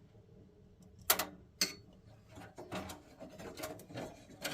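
Handling noise from work on boiler parts: two sharp clicks or knocks about half a second apart, then a run of softer scraping and rubbing sounds.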